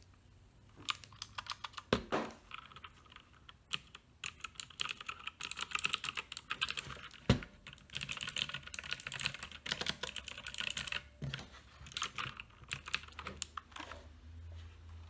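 Typing on an Uhuru UMK-100 60% mechanical keyboard with clicky blue switches: scattered key clicks at first, then a fast, dense run of keystrokes through the middle, thinning out near the end.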